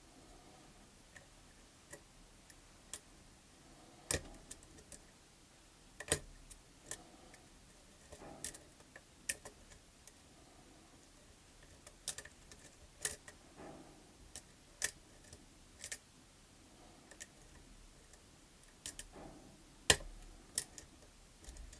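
Irregular light metallic clicks and ticks of a lock pick working inside a pin-tumbler lock, probing for a hard-to-reach pin at the back of a long keyway that is not being lifted high enough to set.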